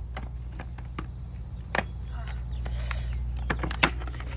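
Giant plastic surprise eggs being handled and pried apart: scattered sharp plastic clicks and knocks, the loudest near the end, with a short hiss a little past the middle. A steady low hum runs underneath.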